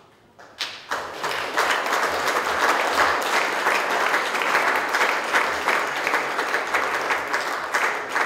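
Audience applauding: many people clapping, starting about half a second in and building to a steady level.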